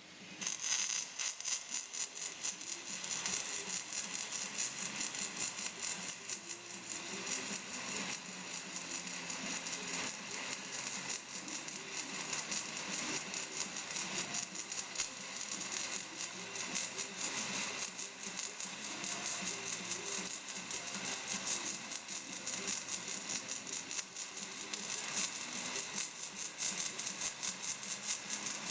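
MIG welding arc crackling steadily, a rapid, dense sizzle of tiny pops that runs without a break.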